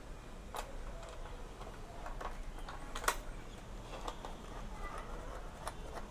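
Small metal clicks and taps of nuts and bolts being handled and fitted into a motorcycle windshield clamp, irregularly spaced, the sharpest click about three seconds in.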